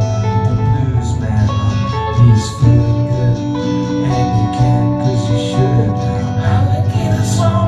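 Live acoustic band music with guitar playing steadily.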